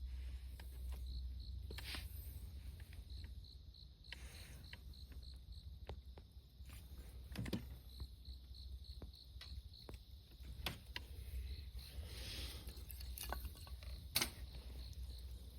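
An insect chirping in a steady run of short high pulses, several a second, broken by scattered sharp clicks and knocks, the loudest about halfway and near the end, over a low rumble.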